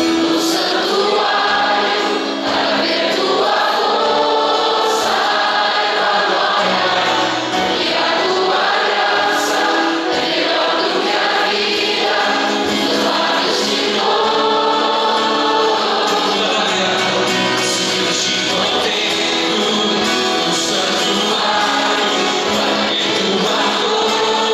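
A Christian worship song: a man singing into a microphone while strumming an acoustic guitar, with the congregation singing along in a steady chorus of many voices.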